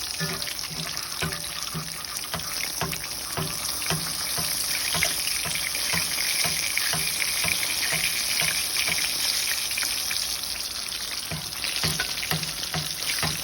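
Battered Dungeness crab frying in hot oil: a steady sizzle full of small crackles and pops, with a low pulse repeating about twice a second.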